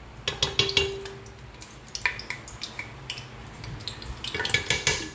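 A spoon scraping and clinking in three short clusters as solid desi ghee is scooped from its jar and knocked into a pot of heated oil.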